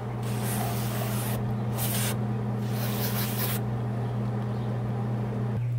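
Aerosol can of CRC electrical contact cleaner spraying in three bursts, a long one, a short one and another long one, flushing dirt out of a MIG welding gun's trigger and handle so the trigger fires the welder reliably. A steady low hum runs underneath.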